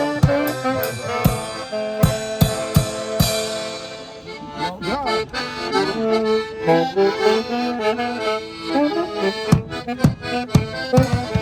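Live accordion playing a dance tune with a drum beating along; the drum drops out for several seconds in the middle, leaving the accordion alone, and comes back near the end.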